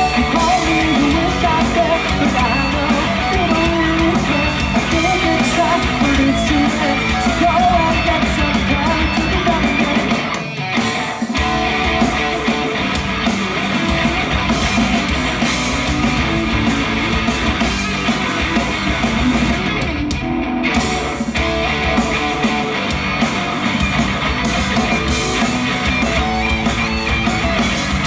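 Live rock band playing an instrumental passage with no singing, guitars to the fore. The band drops out briefly about ten and a half seconds in, then comes back in.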